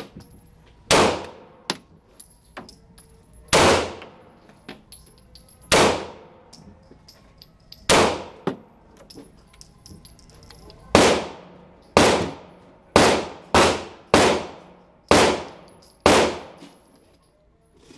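Single pistol gunshots at an indoor range, about eleven loud reports each with a long echoing tail, spaced a second or two apart and coming faster in the second half, with a few fainter shots between them.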